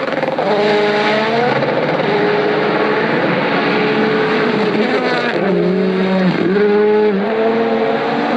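Rally car engine at full throttle on a gravel stage, its pitch rising and falling as it revs through the gears. The pitch drops sharply twice, about five and six seconds in.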